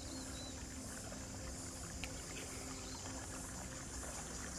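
Kayak being paddled: paddle blades dipping and water washing along the hull.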